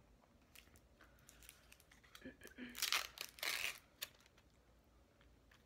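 A small packet being torn open by hand: crinkling and tearing in a few quick bursts over about two seconds, loudest in the middle, ending with a short crack.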